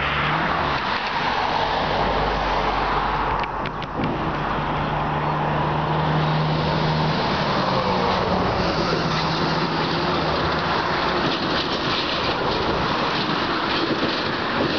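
Road traffic passing close by: a steady rush of tyres and engines, with a low engine hum swelling in the middle.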